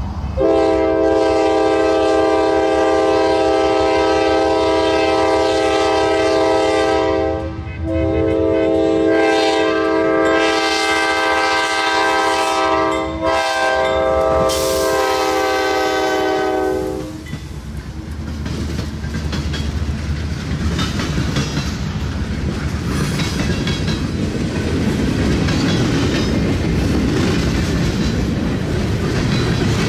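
A diesel freight locomotive's multi-chime air horn sounds long blasts for about the first seventeen seconds, broken twice briefly. The train then rolls past close by, its wheels clattering over the rail joints.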